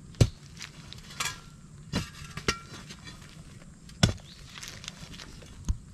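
Steel digging bar striking and breaking up cracked concrete and packed earth: about five sharp, unevenly spaced blows, with a short clatter of loose rubble about a second in.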